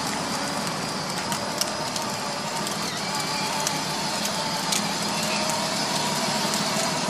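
Hard plastic wheels of a child's battery-powered ride-on toy motorcycle rolling over a concrete sidewalk: a steady gritty crackle with scattered small ticks.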